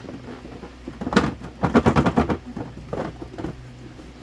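Cardboard scraping and rattling in quick bursts as a tight-fitting cardboard box is worked open. The busiest stretch comes about two seconds in, with a few lighter scrapes after it.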